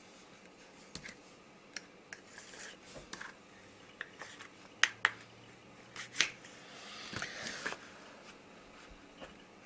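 Straight razor and its cardboard boxes being handled on a bamboo mat: scattered light clicks and taps, the sharpest a pair about five seconds in, and a short rustle about seven seconds in.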